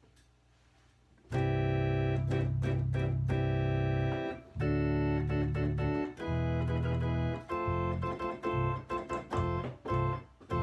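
Yamaha BK20AS electronic organ playing a series of held chords over a low bass. It is registered with flute, horn, cello, brass and string voices, and the tones are steady, without vibrato. The playing starts about a second in.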